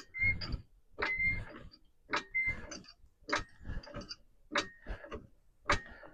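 Car jack being pumped to lift the SUV: six strokes about a second apart, each a sharp clank with a brief squeak.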